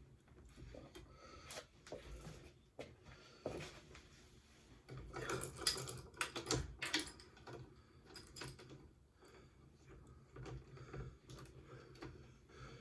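Irregular clicks, knocks and light rattles of a metal quick-release rack being handled and fitted to a bicycle's seat post and rear fork, with a burst of louder knocks about halfway through.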